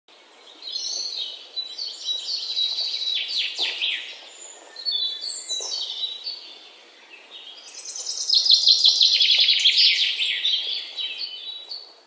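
Birds chirping and trilling, a dense run of quick high chirps in two bouts, the second and louder beginning about eight seconds in, then cutting off abruptly.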